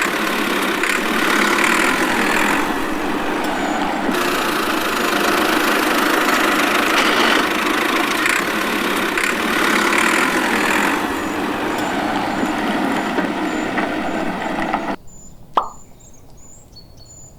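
Small engine running loudly and unevenly, which cuts off suddenly about fifteen seconds in. A single short plop follows soon after.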